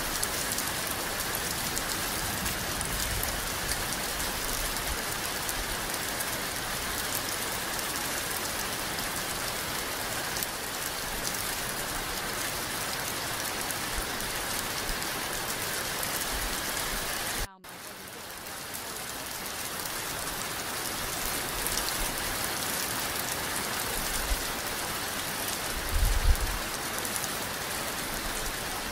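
Steady rain falling, an even hiss. It cuts out abruptly a little past halfway and fades back up over a couple of seconds, with a short low thump near the end.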